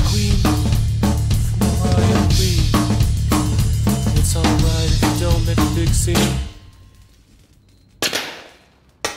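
Instrumental metalcore passage: a full band with a pounding drum kit plays a riff with hard, regular hits, then stops dead about six seconds in. After a near-quiet gap comes one hit that rings out, then a couple of short stabs near the end.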